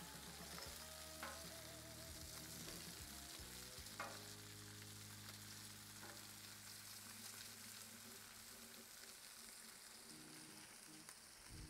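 Faint sizzling of foil-wrapped buttered corn cooking on a Blackstone griddle's hot steel top, with a few light clicks as metal tongs turn the foil packets.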